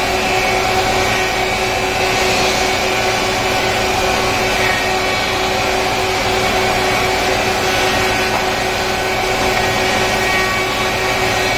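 Industrial four-sided planer running steadily: an even, unbroken machine noise with a steady whine over it.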